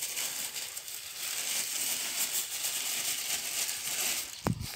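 Thin plastic bag crinkling and rustling as soy is shaken out of it into a tub of feed, with a soft hiss of pouring grain. A single thump about four and a half seconds in.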